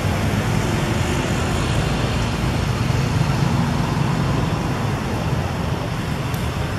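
Steady low rumbling background noise with no distinct events, of the kind left by distant road traffic.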